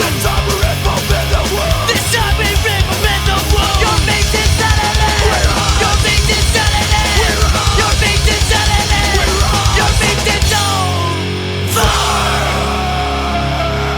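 Loud punk rock recording: distorted electric guitars and drums playing hard. About ten seconds in the dense playing thins out, and near the end a single sharp hit is followed by a sustained ringing chord.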